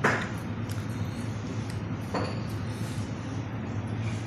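Steady low hum of room background, with two short soft noises about two seconds apart.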